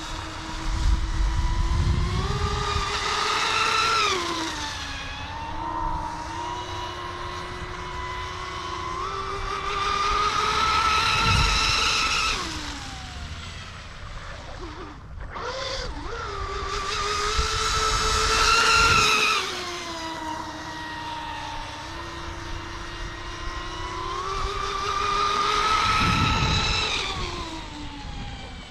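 Small radio-controlled Mini XCat scale racing catamaran running at speed: its motor whines high and steady, swelling louder and dropping in pitch each time it sweeps past, about four times, with a low rumble at each close pass. About halfway through the whine briefly dies away as the throttle is cut, then picks up again.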